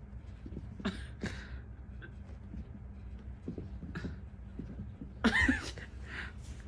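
Two cats play-fighting on carpet: soft scuffling and light thumps with a few short breathy puffs, and one louder, brief burst with a rising-then-falling pitch a little after five seconds in.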